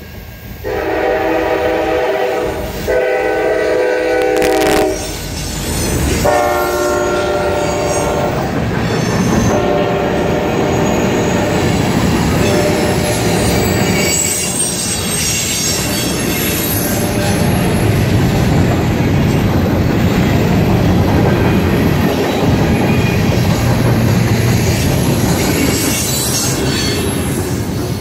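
Freight train at a grade crossing: the CSX GP40-2 diesel locomotive sounds its horn in several long blasts over the first ten seconds or so. The cars then roll past with a steady wheel rumble and clatter that dies away near the end.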